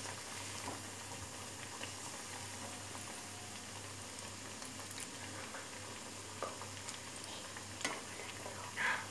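Lentil-and-cabbage vadai deep-frying in hot oil in a steel kadai: a steady bubbling sizzle. A few brief clicks and scrapes come from the slotted steel ladle turning them, the loudest near the end.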